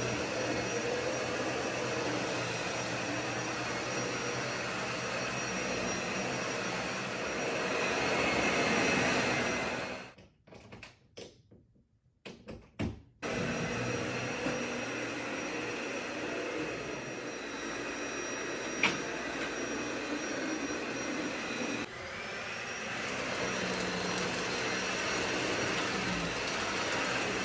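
Vacuum cleaner running steadily. It cuts out for about three seconds some ten seconds in, then runs again.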